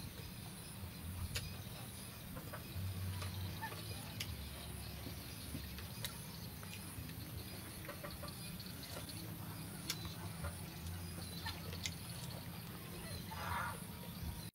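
Quiet eating sounds: a metal spoon clicking now and then against a wooden plate, over a low steady hum. A short bird call comes about a second before the end.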